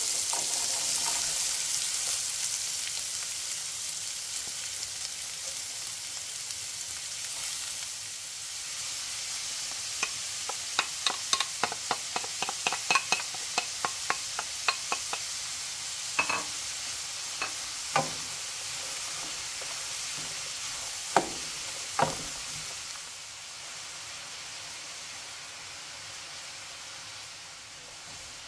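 Diced onions sizzling in hot oil in a metal sauté pan, the hiss slowly easing off. From about a third of the way in, a wooden spoon stirs them, with a quick run of clicks and then a few sharper knocks of the spoon.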